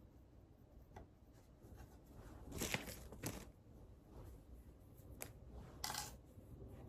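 A few short rustling and scraping sounds with light clicks, like small objects or paper being handled at a desk.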